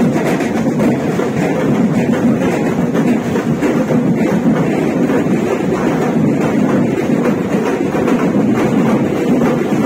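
A marching drumbeater band of snare and bass drums playing together, a loud, continuous, dense wash of drumming.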